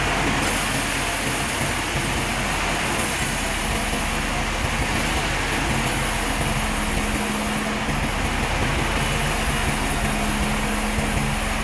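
Sawmill machinery running steadily, a constant mechanical din with a steady hum that comes in a few seconds in.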